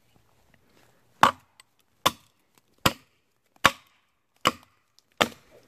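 Hatchet chopping into the limb knot of a pine tree: six sharp, evenly spaced blows about 0.8 s apart, starting about a second in.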